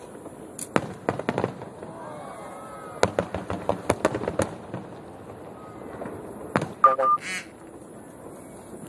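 Aerial fireworks bursting in quick, irregular volleys of sharp bangs and crackles, picked up on a phone's microphone, with crowd voices underneath.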